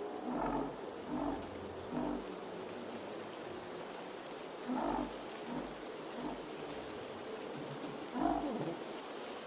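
Snowstorm ambience: a steady rush of blizzard wind, broken by short muffled thumps that come in groups of about three, each a little under a second apart.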